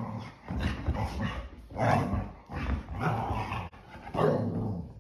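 English springer spaniels vocalizing during rough play in about four bursts of a second or so each, dog growls and barks typical of play-wrestling.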